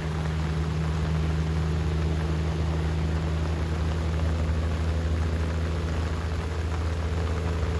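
Steady rain hissing over a constant low hum, unchanging throughout.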